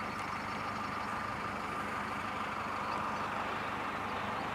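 A truck engine idling, a steady continuous hum.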